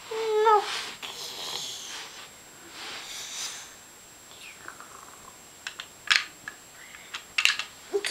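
A young child's vocal play: a short hummed note at the start, then soft breathy hissing mouth noises. In the second half come several sharp clicks and taps of plastic toys being handled, the loudest about six seconds in.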